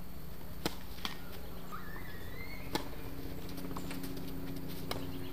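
Tennis ball struck by rackets and bouncing on a hard court during a doubles point: four sharp pocks spaced irregularly, the first, the serve, the loudest.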